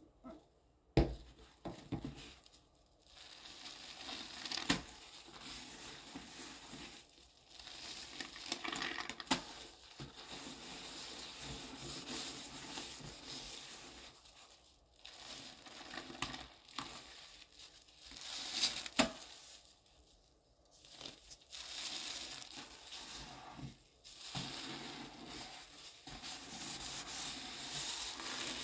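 Sponge scrubbing a thick, wet cleanser paste around a sink bowl: uneven squishing and rubbing strokes, with a few sharp smacks along the way.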